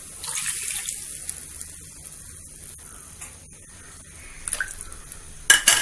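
Water poured from a cup into a kadhai of roasted peanut powder, splashing for the first second or so and then settling to a quieter bubbling. A few clicks and one sharp knock come near the end.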